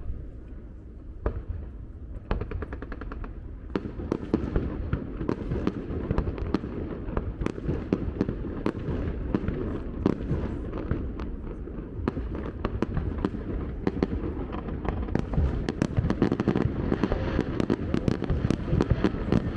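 Fireworks display heard from a distance: a quick, dense run of bangs and crackling over a steady low rumble, growing busier and a little louder in the second half.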